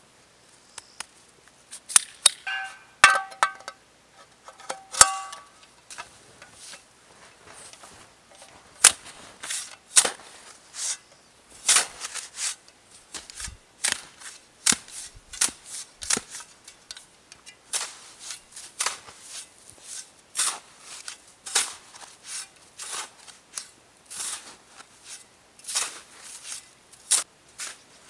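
Boots crunching and packing down dry, cold snow: sharp, irregular crunches about one or two a second, with a squeaky cluster of crunches a couple of seconds in.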